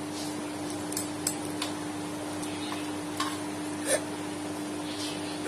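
A young woman hiccuping, about six short, sudden hiccups at uneven intervals, the loudest about four seconds in and at the very end; the hiccups were brought on by eating spicy noodles. A steady low hum runs underneath.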